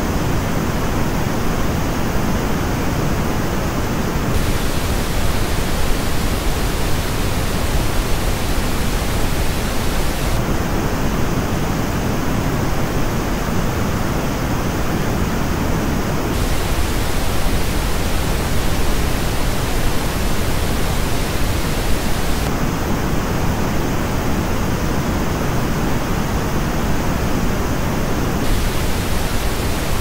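Steady pink noise used as a headphone frequency-response test. It alternates about every six seconds between the flat original reference noise and the same noise played through Dan Clark Audio Ether 2 planar-magnetic headphones and picked up by a measurement head. The headphone version sounds duller, with notches in the upper treble.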